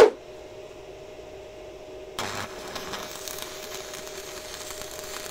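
Stick (MMA) welding arc on a blue 2.5 mm Kjellberg electrode at 80 amps, crackling and sizzling as it burns, striking about two seconds in and running on. Before it, a short loud thump at the very start and a steady low hum.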